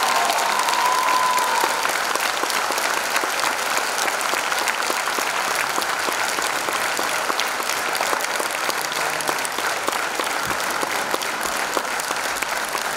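Theatre audience applauding, a steady, dense clapping; the folk band's last held note fades out in the first two seconds.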